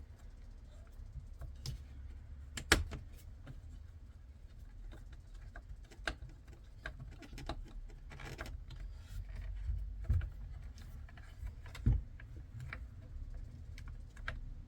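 Light hand work on a steering wheel: scattered small clicks and taps of a screwdriver and parts as the top cover is screwed down, with sharper clicks about three seconds in and near twelve seconds, over a low steady hum.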